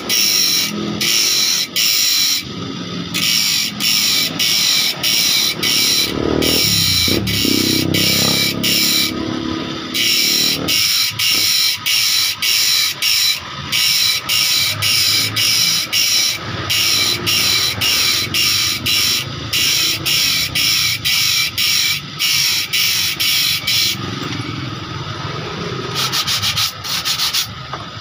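Abrasive grinding wheel on an electric motor cutting new teeth into a handsaw blade, in short grinding passes about two a second over a steady motor whine. The grinding stops about four seconds before the end, leaving the motor running.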